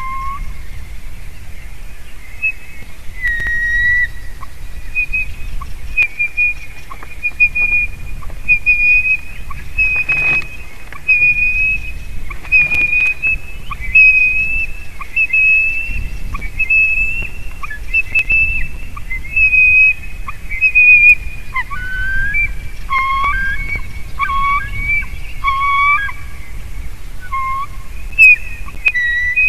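White-tailed eagle whining from above the nest: a long series of short, high yelps, about one a second. Near the end a second, lower series of yelps runs alongside it.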